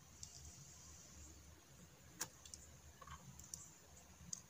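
Near silence with a few faint, sharp clicks, the clearest about two seconds in: small wire leads and components being handled.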